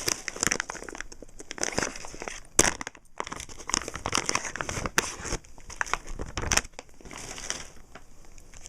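A package being opened by hand: irregular crinkling, rustling and tearing of packaging, with many short sharp crackles and a brief pause about three seconds in.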